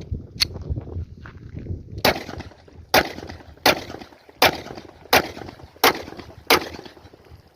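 Glock 19 9mm pistol firing a steady string of single shots: one fainter crack just after the start, then seven sharp shots about 0.7 s apart from about two seconds in, each with a short ringing echo.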